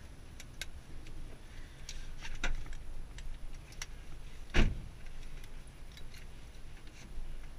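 Scattered clicks and rattles in a stationary rally car's cockpit over a low steady rumble, with one loud thump a little past halfway.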